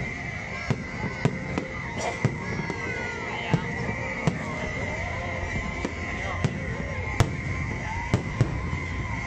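Aerial fireworks shells bursting in an irregular series of sharp bangs, a few louder than the rest, over a steady background of crowd voices.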